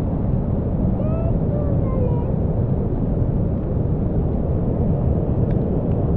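Steady low roar of a mountain stream in flood: fast, muddy rain-swollen water rushing past close by.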